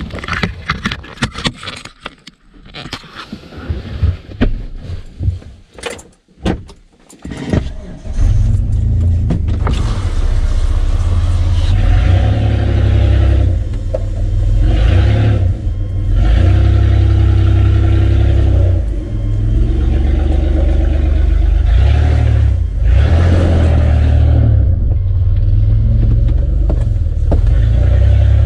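Handling clicks and knocks for the first several seconds, then from about 8 seconds in a Mitsubishi Pajero's engine runs loud and low, heard inside the cabin as the vehicle is driven.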